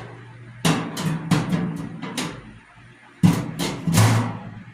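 Parts washer's metal tray clanking against the tank as it is fitted in place: a quick run of sharp ringing clanks, then three more a second later.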